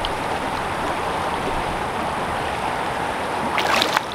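Fast, shallow mountain river rushing over a rocky bed: a steady, even rush of water. A brief, sharper rustle of noise comes near the end.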